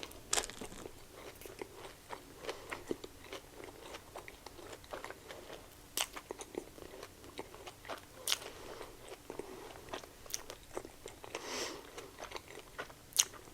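Close-up chewing and biting of a Korean corn dog with a crunchy hot Cheeto coating: irregular crisp crunches and mouth clicks, a few louder bites standing out.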